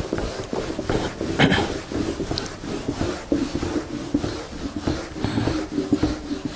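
Felt eraser rubbing across a whiteboard in a series of wiping strokes, clearing off marker writing.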